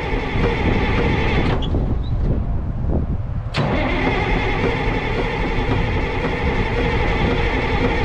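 Cat D6B bulldozer engine going steadily with a heavy low drone. About a second and a half in, the higher part of the sound drops away, and it returns with a sharp click about two seconds later.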